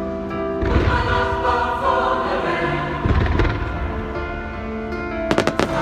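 Fireworks going off over choral music: bursts of crackling with low rumbling booms starting just under a second in and again about three seconds in, then a quick run of four or five sharp bangs near the end.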